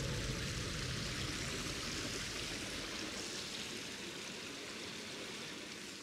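Small forest stream running over little cascades: a steady rushing of water that grows gradually quieter.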